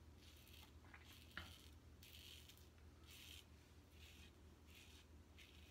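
A Fatip Piccolo open-comb safety razor scraping through lather and short stubble in a series of faint, short strokes, about one or two a second, with a small click about a second and a half in. A low steady hum runs underneath.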